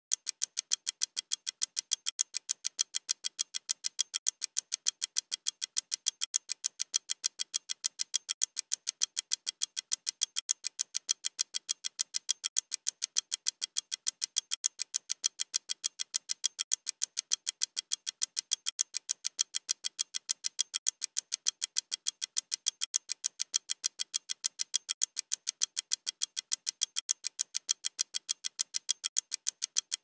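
Clock ticking sound effect: sharp, evenly spaced ticks, several a second, in a steady unbroken rhythm.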